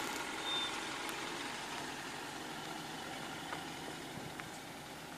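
Mercedes-Benz GLC 250 4MATIC SUV's four-cylinder engine running at low speed as it crawls onto a rutted sand track, the sound slowly fading as it pulls away.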